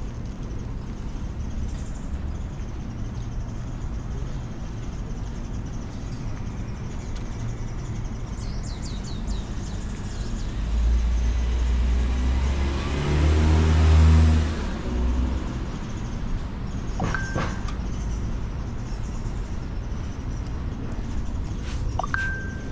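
A car, a taxi, drives past close by: its engine and tyre noise swell to a peak a little past halfway, then fade, over a steady background of street traffic.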